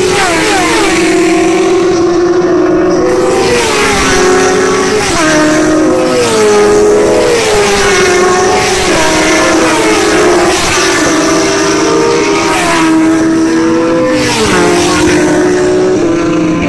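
Racing motorcycles passing one after another at speed, their engine notes dropping in pitch as each goes by, with several engines heard at once.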